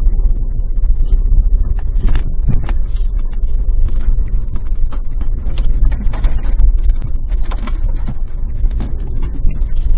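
Suzuki Jimny Sierra driving on a gravel forest road, heard from the dashcam: a steady low engine and road rumble with constant clattering and ticking of body rattles and stones under the tyres. Brief high squeaks come about two seconds in and again near the end.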